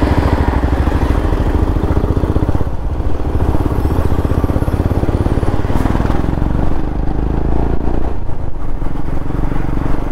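Royal Enfield Himalayan 411 cc single-cylinder engine, fitted with an aftermarket exhaust, running steadily under way, with wind noise over it.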